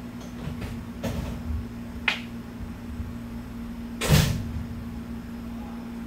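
Hakone Tozan Railway electric train heard from inside the car: a steady electrical hum over a low rumble, with a few knocks and clunks, the loudest about four seconds in.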